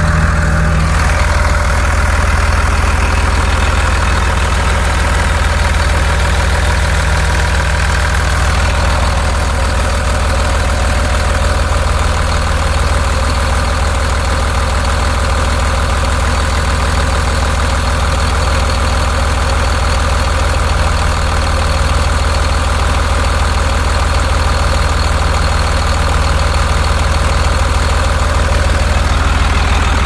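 Cummins 8.3-litre inline-six diesel engine of a wheel loader idling steadily, heard up close in the open engine compartment.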